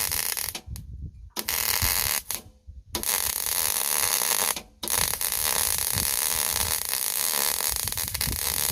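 Wire-feed (MIG) welder arc crackling as a bead is laid, in several short runs with brief stops, then one steady run of about four seconds. The welder is turned down and run slower to bridge a wide gap.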